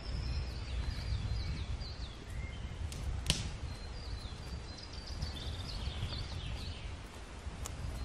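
Spruce-forest ambience: small birds chirping in quick, high, repeated notes over a low rumble, with footsteps on moss. One sharp click about three seconds in is the loudest sound.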